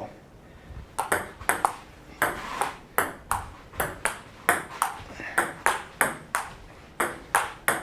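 Table tennis rally: the ball clicking back and forth in quick alternation of paddle hits and table bounces, a steady run of sharp ticks about three a second that starts about a second in and carries on for some six seconds.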